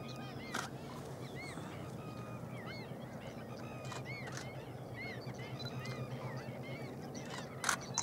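A flock of greater flamingos calling: many short, arched, goose-like honks overlapping one another. A sharp click sounds about half a second in and a louder one near the end.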